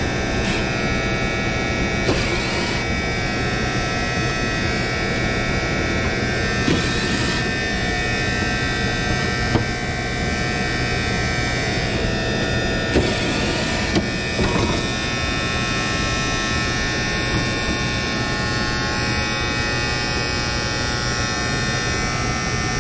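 Contactor in an old Trane TEC electric air handler buzzing steadily, a loud mains buzz with many overtones, which the technician judges to be just a noisy contactor rather than a faulty one. A few short clicks and brief whirs of tool handling come over it.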